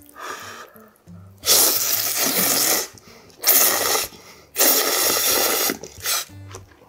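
A man slurping tonkotsu ramen noodles off chopsticks: three loud slurps starting about a second and a half in, then a brief one near the end.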